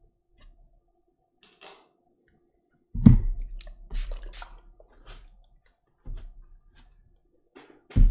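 Handling sounds from a hand and brush working at a painting board: three dull thumps, about three seconds in, about six seconds in and at the end, each followed by a few small clicks and taps.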